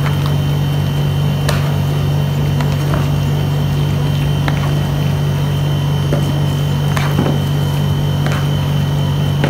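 Creamy macaroni salad being tossed with two plastic spatulas in a plastic bowl: soft squishing of dressed pasta and a few sharp clicks of spatula against bowl, over a steady low hum.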